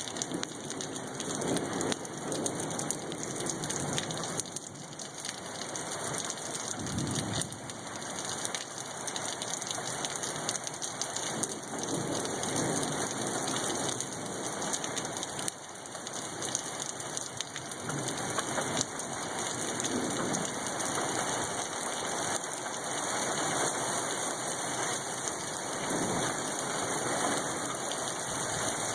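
A heavy storm downpour pelts steadily on surfaces as a dense patter of many small hits. Deeper rushing gusts of wind swell and fade every few seconds.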